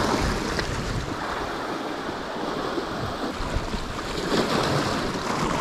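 Sea waves washing and breaking against a rocky shore. The surge swells near the start and again after about four seconds.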